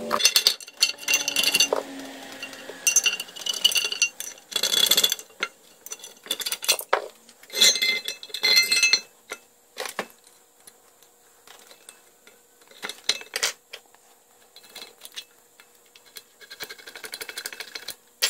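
Clinks, knocks and clatter of metal vise parts and tools being handled on a workbench, several with a short metallic ring, busiest in the first half and sparser later.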